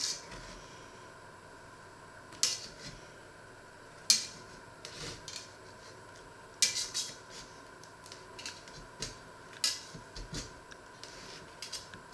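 A serrated bread knife scraping and knocking against the inside wall of an enamelled cast-iron pot as it is worked around a baked loaf to free it. The sound comes as irregular sharp scrapes and clicks, several strokes at uneven gaps.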